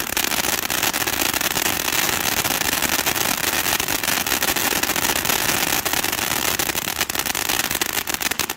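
Blast Wave Cuckoo ground fountains burning: a steady, loud hiss of sparks thick with fast crackling. It cuts off suddenly near the end as the fountains burn out.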